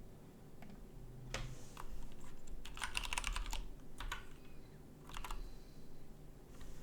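Typing on a split mechanical keyboard: irregular runs of key clicks, with a quick flurry of keystrokes a few seconds in and short pauses between bursts.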